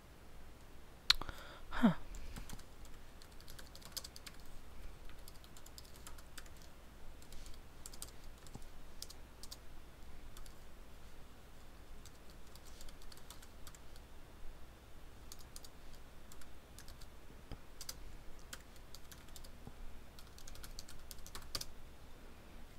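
Typing on a computer keyboard: a run of light key clicks with short pauses. About a second in there is a louder knock, followed by a brief falling squeak.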